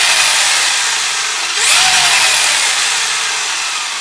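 Traxxas Velineon brushless motor in an RC truck, spinning up through its spur gear and transmission with a loud grinding whine. It revs up again about a second and a half in and starts winding down near the end. The owner is pretty sure the noise is a bad bearing in the brand-new motor.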